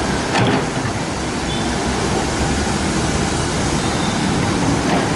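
Komatsu 130F excavator's diesel engine running steadily while working, with a knock about half a second in and another near the end.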